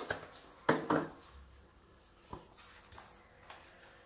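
A few short knocks and clatters of kitchen utensils and containers being handled and set down. The loudest come at the start and about a second in, followed by a few faint taps.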